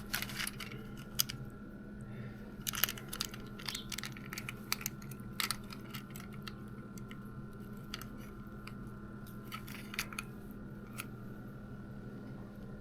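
Scattered clicks and taps of a smallmouth bass being handled and set on a fish scale, over a faint steady hum.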